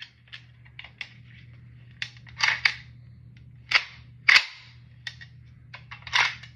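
Draco AK-pattern short-barrelled rifle being cleared. A few light clicks as it is handled, then three racks of the action, each a pair of sharp metallic clacks as the bolt carrier is pulled back and slams forward, to check that the chamber is empty.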